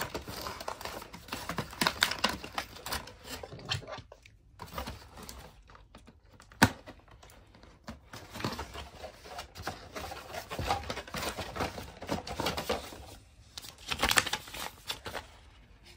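Cardboard toy box being handled and opened: irregular rustling, scraping and clicking of the card, with one sharp click about six and a half seconds in. Paper leaflets rustle as they are unfolded near the end.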